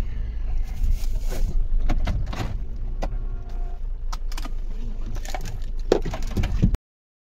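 Inside a stopped car: a steady low rumble of the car running, with scattered light ticks and knocks in the cabin. The sound cuts off abruptly near the end.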